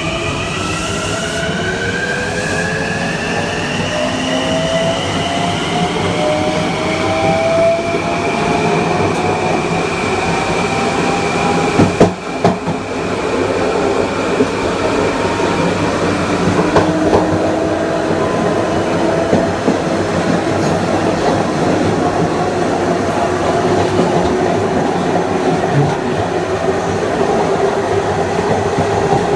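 Kawasaki M9 electric multiple unit with Mitsubishi (MELCO) IGBT-VVVF inverter and AC traction motors, accelerating. The motor whine climbs in pitch over the first several seconds, then holds steady over the rumble of wheels on rail. There is a sharp knock about twelve seconds in and a few rail-joint clicks near the end.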